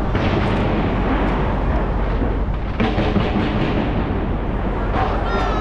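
Skyscraper New Year fireworks display: a continuous rumble and crackle of many shells bursting at once, with sharper bangs scattered through. A brief whistle sounds near the end.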